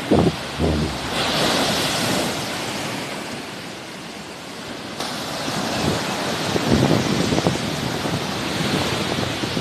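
Sea waves washing in: the surf swells about a second in, ebbs away, and another wave builds from about five seconds. Wind buffets the microphone in low gusts.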